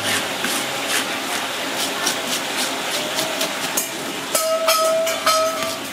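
A plastic fish scaler scraped in quick repeated strokes, about two to three a second, over the skin of a large fish on a wooden chopping block, stripping off the scales. From about four and a half seconds in, a steady high tone sounds in short pieces.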